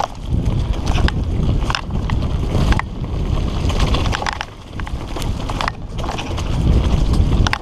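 Wind buffeting a helmet camera's microphone and tyre rumble on a dirt trail as a fully rigid Redline Monocog singlespeed mountain bike descends at speed. Scattered sharp clicks and rattles come from the bike jolting over bumps. The rush eases briefly about halfway through.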